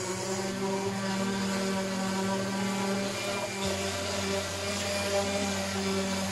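Corded random orbital sander running steadily as it is worked along pine boards.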